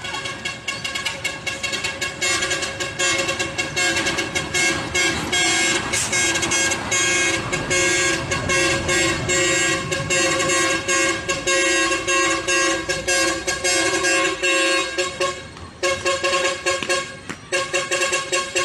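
Truck horns honking a rhythmic tune in quick, short blasts, several pitches sounding together, with two brief breaks near the end.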